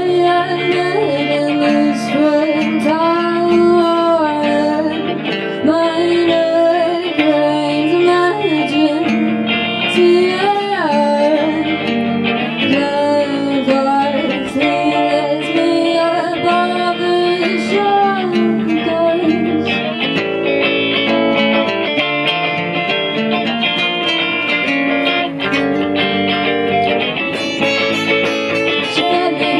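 Live band music with guitars, strummed and picked. A gliding melody line runs over the top for about the first two-thirds, then the accompaniment carries on alone.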